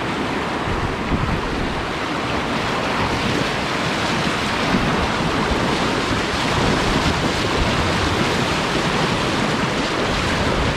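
Whitewater rapids of a river in high flow rushing steadily around the kayaks, a dense even wash of water noise that swells slightly toward the end.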